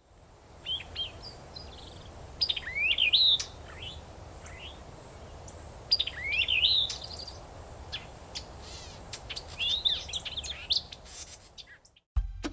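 A songbird singing in three loud phrases of quick rising, warbling whistled notes, with shorter chirps between them, over a faint low steady rumble.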